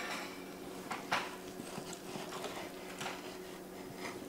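A knife cutting down through a cooked pork chop on a chopping block, with a few light knocks of the blade against the board over a steady low hum.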